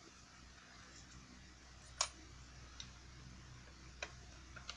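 A few sharp clicks and taps of hard plastic parts on a toy patrol boat being handled and fitted together by hand, the loudest about two seconds in, with weaker ones near the end.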